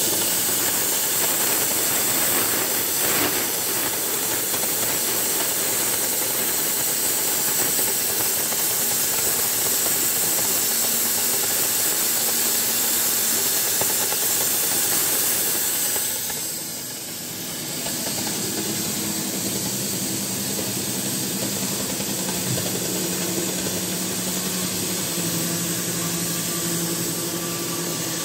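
CNC cutting torch cutting through thick steel plate: a steady, loud hiss of the cutting jet. It dips briefly about two-thirds of the way through, and after that a faint low steady hum runs under the hiss.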